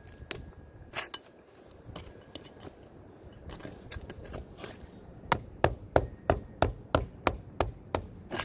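Hammer strikes: a few scattered blows, then from about five seconds in a steady run of sharp strikes, about three a second.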